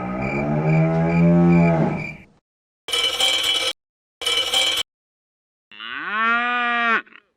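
Cartoon cow mooing sound effect: one long moo for about two seconds, then two short noisy bursts, then a shorter pitched call that rises, holds and falls near the end.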